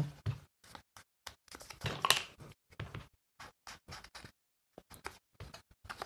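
Paper and a small wooden tag being handled on a desk: a string of short scratchy rustles with gaps between them, the loudest about two seconds in.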